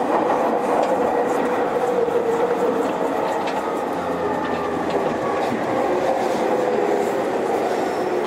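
JR East E231 series Yamanote Line electric train running, heard inside the passenger car: steady wheel and rail noise with a few clicks over rail joints. The traction motors' whine falls slowly in pitch as the train slows.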